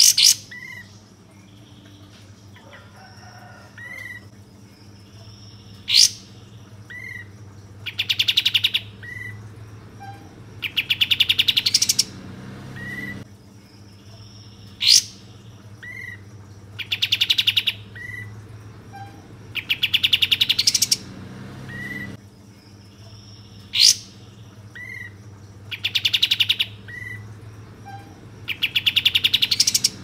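Grey-cheeked bulbul (kapas tembak) singing: a sharp upward note, then two bursts of very fast rattling trill, with short chirps between. The same sequence comes round about every nine seconds.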